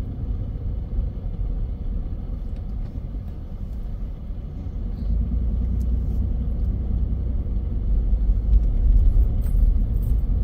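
Low, steady rumble of a car's engine and tyres, heard inside the cabin as it drives, growing louder near the end as it picks up speed.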